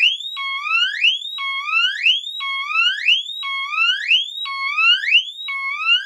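Teledyne Water-Pik D-2 SonicSiren smoke detector's electronic piezo horn sounding under test, its test button held down: a repeating siren whoop, about one a second, each sweep holding low and then gliding upward in pitch.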